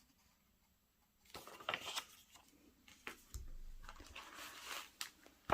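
Dead silence for about the first second, then quiet, irregular rustling and scratching of paper being handled, with several light clicks and a sharper click near the end.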